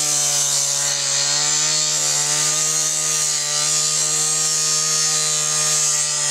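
Two-stroke petrol cut-off saw running at steady high revs, its cutting disc grinding through a car's steel body with a continuous high-pitched hiss over the engine's even drone.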